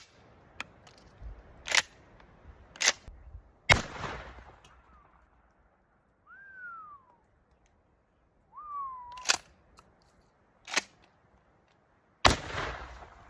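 Mossberg 12-gauge pump-action shotgun firing about seven shots at uneven intervals: three in quick succession in the first four seconds, then a pause, then three more near the end. Several shots leave a ringing echo. A few short whistle-like calls sound in the gap.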